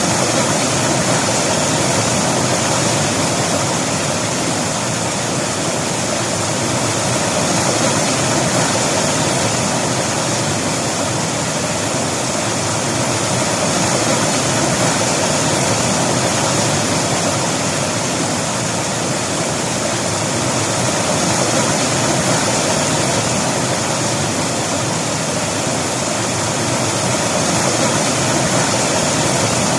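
River water rushing over rocks in a steady, loud hiss, swelling and easing gently every few seconds.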